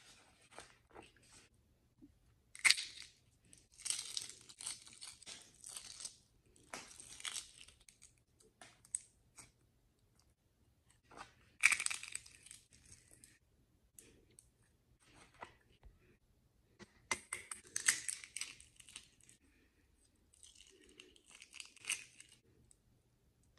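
Brown eggshells filled with clear slime being cracked and peeled off by hand: about six bursts of crackling and crunching shell with quiet gaps between them.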